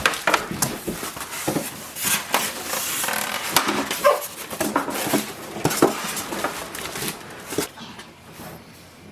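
Cardboard box and packaging being handled during unboxing: irregular knocks and clicks with a stretch of rustling, and a brief squeak about four seconds in.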